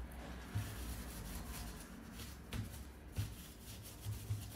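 Faint rubbing and handling of a plastic laptop housing being wiped with an alcohol wet wipe, with a few light knocks.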